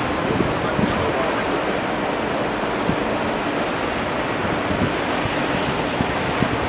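Steady rush of wind on the microphone over the murmur of a large crowd.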